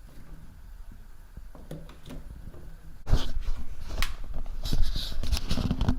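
Handling noise: quiet at first, then about halfway through a sudden, loud run of knocks, clicks and low rumble, as of things being handled and bumped close to the microphone.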